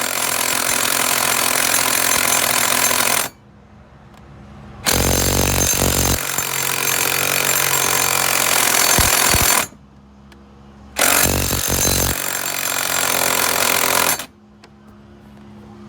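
Impact wrench hammering in three long bursts of several seconds each, with short pauses between them, on a stubborn seized nut that will not break loose.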